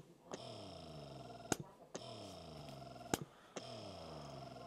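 Electric breast pump running its suction cycle: a click about every second and a half, each followed by a motor whirr that falls in pitch, three cycles in a row.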